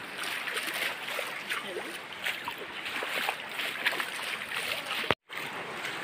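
Steady rushing of a shallow stream flowing over rocks, broken by a brief complete dropout about five seconds in.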